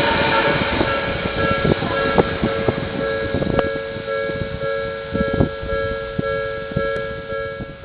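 Odakyu electric train passing over a level crossing, its wheels clacking irregularly over the rail joints and fading away, over the steady ringing of the crossing alarm.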